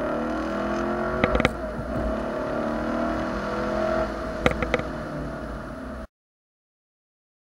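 Chevrolet Camaro SS 1LE's V8 engine and exhaust droning steadily as heard inside the cabin while driving, with a few brief clicks. The sound cuts off abruptly about six seconds in.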